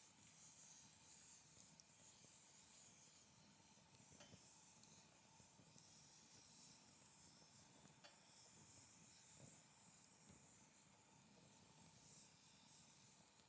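Wood fire burning quietly in a folding fire pit: a faint steady hiss with an occasional soft crackle.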